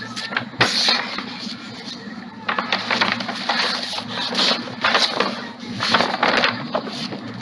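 Irregular rustling and crackling, in uneven clusters of short noisy bursts, over a faint steady low hum.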